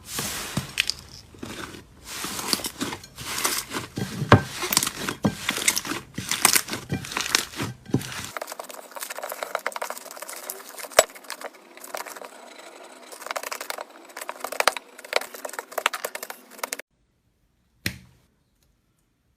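Slime being pressed, stretched and squished by hand, giving a dense run of crackles and crinkles. About eight seconds in it cuts to another clip of the same with a thinner sound. It stops near the end, with one short click after.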